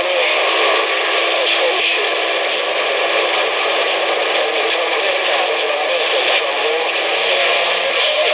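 CB radio receiver putting out steady, loud static hiss over an open channel, with faint wavering tones buried in it.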